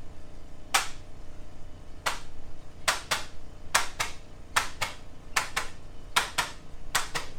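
A series of sharp clicks, mostly in quick pairs about a quarter second apart, repeating roughly once a second.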